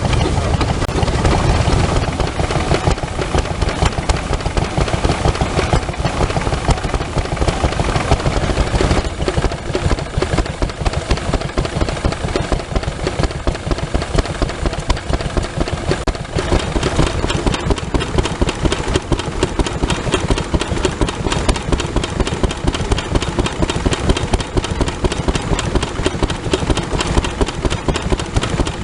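Vintage stationary engine running steadily, with a fast, even run of firing beats.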